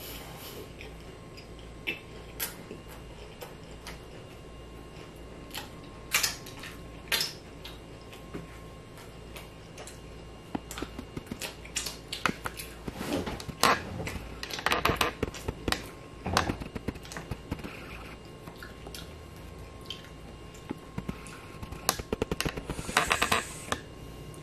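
Close-miked chewing and lip-smacking of skewered fried Filipino street food such as fish balls and kwek-kwek: irregular runs of short wet clicks, busiest around the middle and again near the end.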